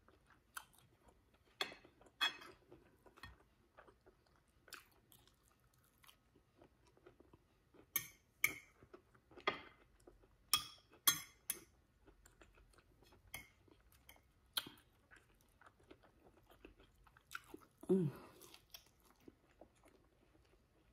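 Close-up chewing of a pan-fried salmon croquette with a cornmeal and fish-fry crust, in irregular crisp crunches that are loudest about eight to twelve seconds in. A short hum from the eater comes near the end.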